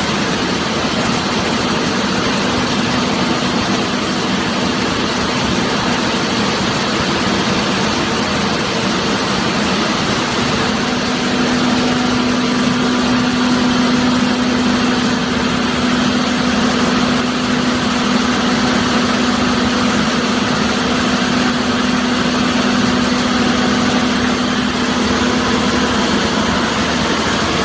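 Scrap car baler's power unit running with a steady machine hum, which grows louder about ten seconds in.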